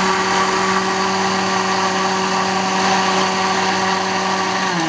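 Electric blender (mixer-grinder) motor running steadily at full speed with a hum, blending strawberries and milk in its jar. It is switched off near the end and its pitch begins to fall as the motor winds down.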